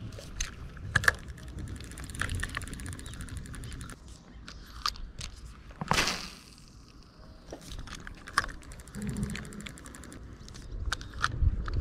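Light mechanical clicks and rattles with stretches of fast ticking, and one sharper knock about six seconds in.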